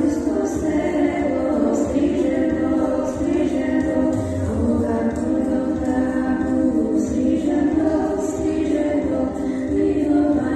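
Music: a song sung by a group of voices, running steadily.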